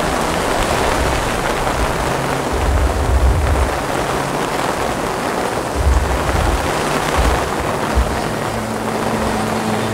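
Heavy rain falling steadily, a dense hiss of drops, with low rumbles about three and six seconds in.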